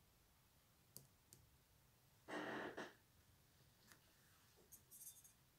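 Near silence with faint handling noise from a hand-held phone: a few light clicks, a soft rush of noise lasting about half a second a little past two seconds in, and a light rustle near the end.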